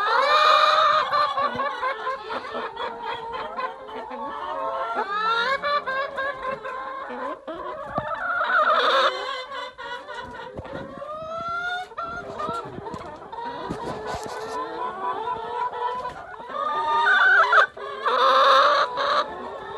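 A flock of egg-laying hens clucking and calling over one another without pause, with louder squawking calls just after the start, about nine seconds in and again near the end.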